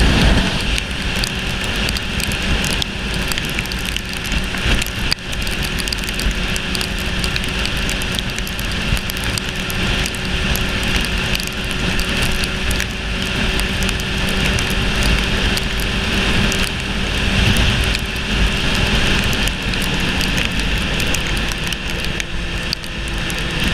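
Sport motorcycle cruising at road speed on a wet road: a steady rush of wind and road noise over a steady engine drone, the engine note dropping slightly about twenty seconds in.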